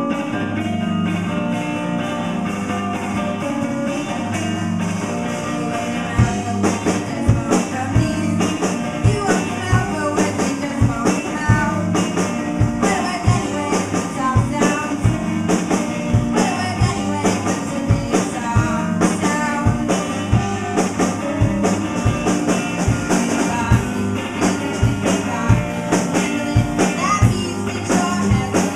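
Live band, guitar and drum kit, playing a song: sustained guitar notes with cymbal strokes, and steady kick and snare hits that come in louder about six seconds in.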